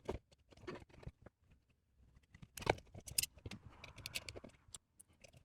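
Hands handling and fitting together small 3D-printed plastic parts and servos: scattered light clicks and taps, a sharper knock about two and a half seconds in, and a soft rustle around four seconds in.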